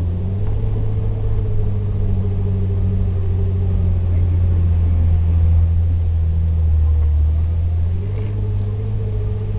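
Jeep Wrangler TJ's engine running steadily as it drives along an off-road trail: a low drone with a steady whine above it, easing off slightly about eight seconds in.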